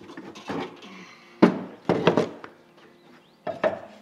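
A handful of knocks and clanks of metal tools and gear being shifted about in a pickup truck's bed, the loudest about a second and a half in.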